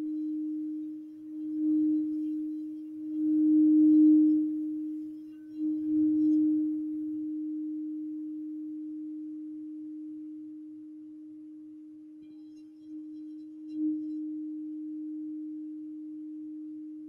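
Iridescent crystal singing bowl played with a white wand: one steady ringing tone that swells about three times in the first seven seconds as the wand works the bowl, then rings on and slowly fades, with one more brief swell near the end.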